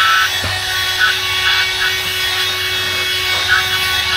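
Ambiano handheld cordless wet and dry vacuum cleaner running at a steady whine, its nozzle worked over a carpet car floor mat, with brief scratchy rasps now and then as it moves.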